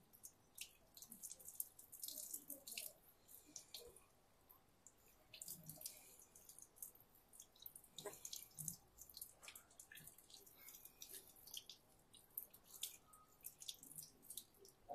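Faint water dripping and splashing in short, irregular spatters.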